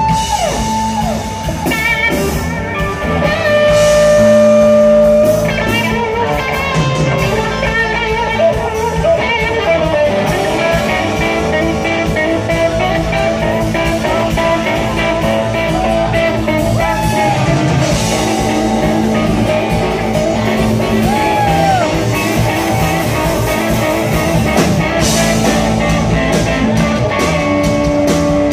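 Live rock band with an electric guitar solo on a red semi-hollow-body guitar: held notes and string bends over drums and a rhythm instrument.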